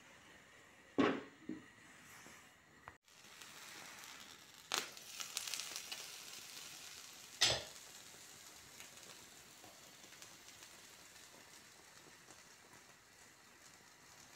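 Egg mixture for an omelette sizzling quietly in a frying pan, the sizzle rising for a couple of seconds around the middle. A few sharp knocks cut through it: two about a second in, one near five seconds and one at about seven and a half seconds.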